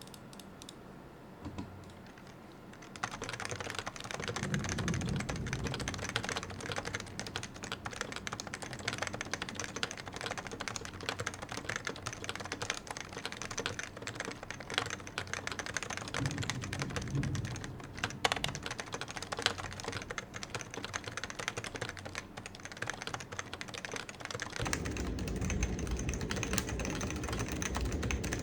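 Continuous typing on a Topre Realforce 101 keyboard with stock variable-weight rubber dome switches, about twenty years old, under a steel plate. A dense run of thocky keystrokes picks up about three seconds in. Low thunder rumbles underneath at times, with a steadier rumble near the end.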